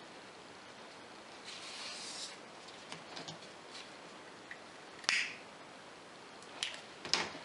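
Satin ribbon rustling as it is handled, then a lighter being struck: one sharp click with a short hiss about five seconds in, and two more clicks near the end. The flame singes the cut end of the ribbon.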